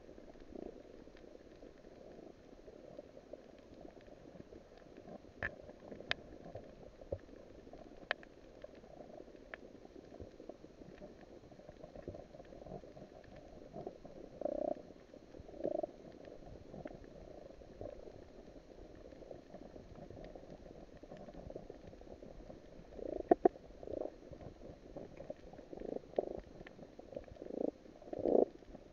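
Underwater reef ambience through a camera's waterproof housing: a steady low, muffled rumble of water with scattered sharp clicks. A few louder short knocks come about halfway through and again in a cluster near the end.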